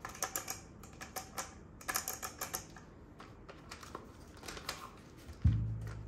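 Hollow plastic toy robot handled and turned over in the hands: quick runs of light plastic clicks and taps, then one low thump about five and a half seconds in.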